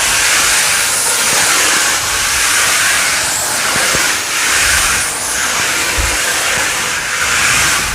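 Hoover Steam Complete Pet steam cleaner's steam blast jet hissing steadily into tile grout. The hiss swells and dips about once a second, with a couple of low bumps.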